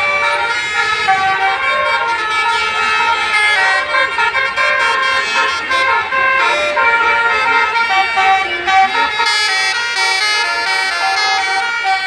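Basuri multi-tone musical air horn (klakson telolet) on a bus playing a running melody of changing reedy notes, with higher, brighter notes from about nine seconds in.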